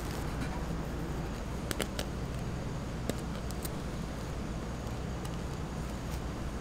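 Steady low hum with a few light clicks and taps, a cluster about two seconds in and a couple more a second or so later.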